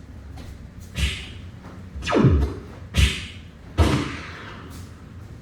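Four punch sound effects from a taekwondo sound-effect punching tool, each a sudden thud with a pitch falling away. They come about a second apart, the second and third the loudest.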